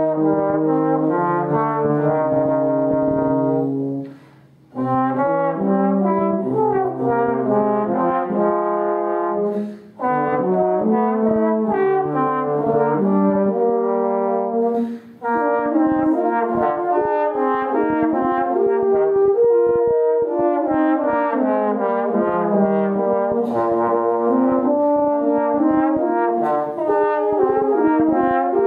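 Tenor trombone and a second brass instrument playing a slow classical duet, the trombone carrying the melody over a moving accompaniment line, with brief breaths between phrases about four, ten and fifteen seconds in.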